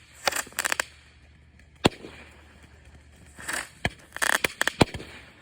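Consumer fireworks going off in a run of sharp pops and crackles in irregular clusters: a quick burst near the start, one lone bang about two seconds in, and a dense crackling run in the second half.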